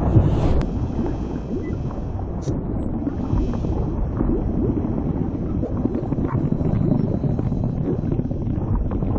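Low, rumbling ambient drone of a documentary soundtrack, steady throughout, with a whoosh that ends about half a second in.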